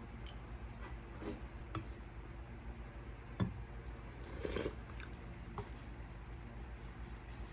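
Small eating and tableware sounds: a few light clicks, a sharp knock about three and a half seconds in, and a short noisy sound a second later, over a low steady hum.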